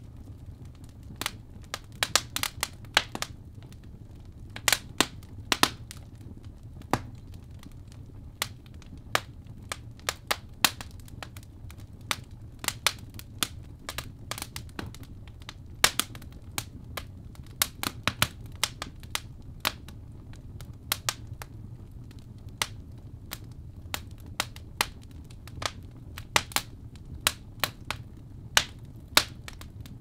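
Fire crackling: irregular sharp pops and snaps, some much louder than others, over a low steady rumble.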